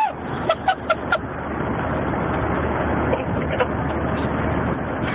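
Steady road and wind noise inside a car moving at highway speed, with a low engine hum underneath. Four short, sharp sounds come in quick succession between about half a second and a second in.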